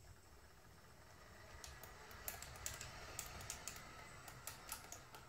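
Brushless track drive of a Komatsu D71PXi RC model dozer setting off and running slowly, very quiet: a faint low hum and thin steady whine, with the track links clicking irregularly from about a second and a half in.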